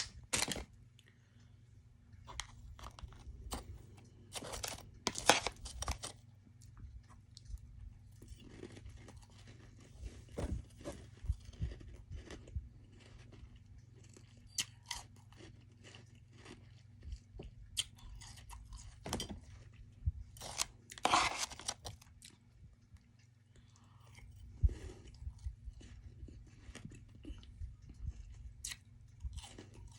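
Close-up chewing and crunching of soft freezer frost, in irregular bites with brief crackly bursts, two of them louder than the rest. A steady low hum runs underneath.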